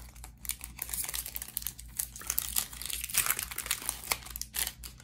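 Foil wrapper of a Magic: The Gathering booster pack crinkling and crumpling in the hands as the pack is opened and the cards are pulled out, in a run of irregular crackles.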